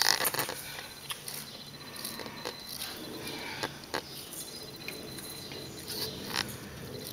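Scattered soft clicks, knocks and rustles of Siberian kittens moving about at close range, mixed with the handling noise of a handheld camera. The sharpest clicks come at the very start, around four seconds in and again a little after six seconds.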